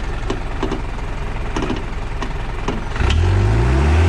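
Off-road vehicle's engine running low with several short knocks and clatters, then revving up hard about three seconds in, its pitch rising.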